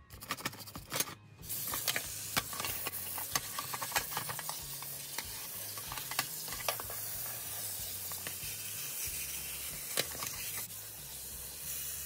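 A plastic dishwasher filter and its mesh screen scrubbed with a toothbrush: light scratching and clicks, then from about a second and a half in, a steady hiss of tap water running over them while the scraping goes on.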